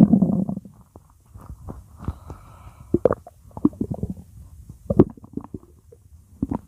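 Stomach growling: a loud low rumble that trails off in the first moment, then a run of scattered gurgles and pops, the strongest about three and five seconds in.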